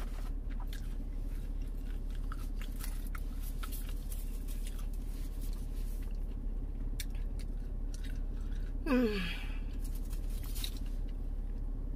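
Chewing a mouthful of breaded chicken nuggets, with wet mouth smacks and clicks throughout. About nine seconds in, a short hum from the voice falls in pitch.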